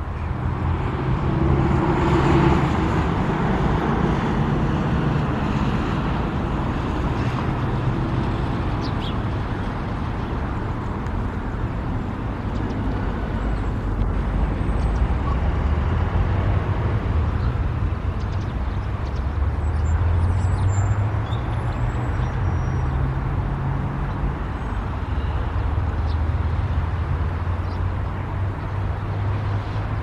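Steady rumble of road traffic, with slow swells in loudness. A few faint, short, high chirps sound over it about two thirds of the way in.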